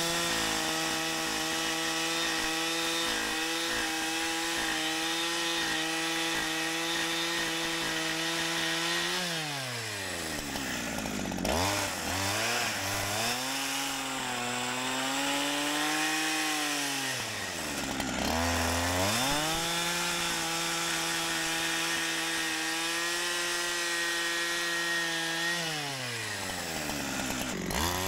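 Holzfforma G372xp two-stroke chainsaw with a 28-inch bar, ripping lengthwise along a log at full throttle, its engine note held steady under load. Three times the revs drop away and climb back up: about ten seconds in, again some eight seconds later, and near the end.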